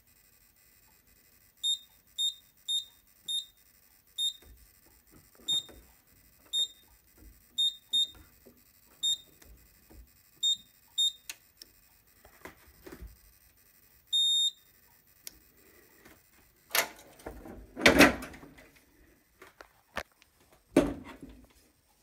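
Simplex 4008 fire alarm control panel keypad beeping, a short high beep with each button press, about a dozen over ten seconds while the walk test is being set, then one longer beep about fourteen seconds in. Near the end, a few loud knocks and rubbing sounds.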